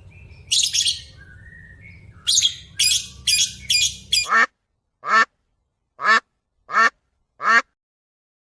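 Bird calls: a handful of harsh, high calls over a low hum, then, after a cut, five evenly spaced calls in a row, about one every 0.7 seconds.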